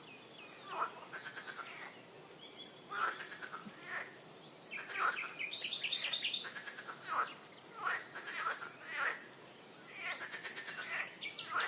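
Frogs calling in a chorus. Short calls of quick pulses repeat about once a second, some overlapping.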